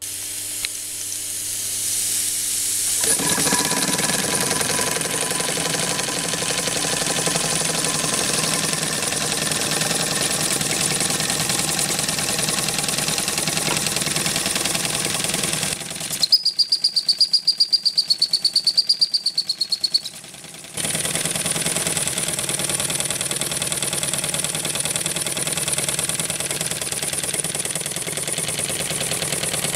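A Jensen 20R toy steam engine runs with a steady hiss of steam, driving a K.J. Miller airbrush compressor by belt. For about four seconds in the middle the sound turns into a fast pulsing with a high wavering tone over it.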